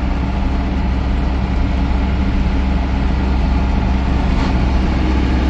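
A vehicle's engine and road noise while driving, heard from inside the cabin: a steady low drone that does not change.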